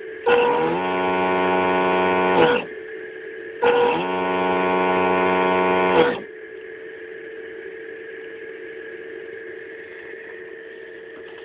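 Two long ship's-horn blasts, about two seconds each, played by the model boat's onboard sound module through its small loudspeaker. Each blast sags in pitch as it ends. A steady electronic hum runs under them and carries on alone after the second blast.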